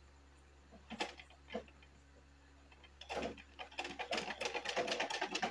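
Sewing machine stitching a seam. Two light clicks come about a second in, then from about three seconds in the machine runs in a rapid, even clatter of stitches.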